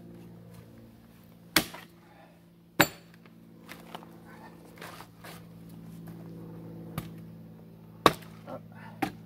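Hammer strikes on a steel splitting wedge driven into a sycamore round, a few sharp blows spaced unevenly, one of them ringing briefly. The stringy sycamore is hard to split and stays held together by its fibres. A faint steady hum runs underneath.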